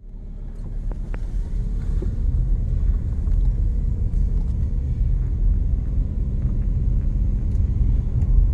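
Steady low rumble of a car's engine and tyres heard from inside the cabin while driving, growing louder over the first couple of seconds.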